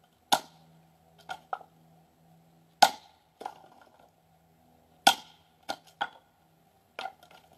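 Kindling being split on a wooden chopping block: three sharp chops about two and a half seconds apart, with lighter knocks of wood between them.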